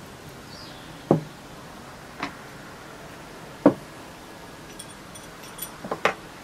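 Several separate sharp knocks a second or more apart, with a quicker cluster of smaller knocks and ticks near the end, over a faint steady outdoor background.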